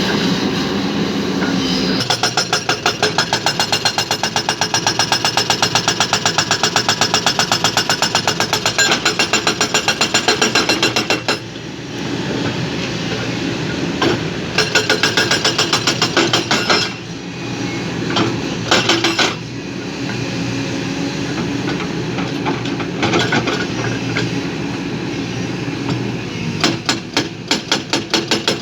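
Heavy earth-moving machinery at work, with a fast, even metallic clatter that stops and starts several times over a steady machine noise.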